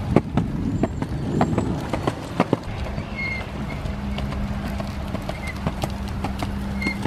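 Skateboard and stroller wheels rolling over a concrete path: a low rolling rumble with scattered sharp clicks, thickest in the first couple of seconds. From about three seconds in a steady low hum runs under it, and there are a few faint bird chirps.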